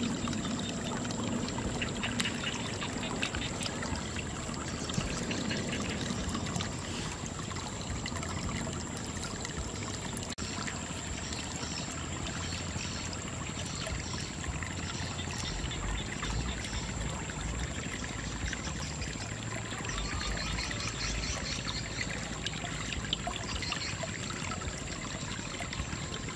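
Water trickling and running steadily into a shallow mud-walled pool, with soft wet pats and squelches as hands smooth the wet mud wall of a fish trap.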